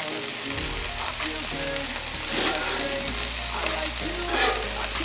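Ribeye steak slices and an egg sizzling steadily on a flat-top steel griddle, with a metal spatula scraping across the griddle a couple of times.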